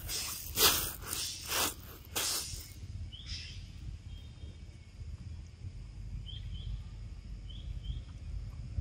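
Outdoor ambience with a steady low rumble. A few short rustling noises come in the first couple of seconds, then a few faint, short bird chirps near the end.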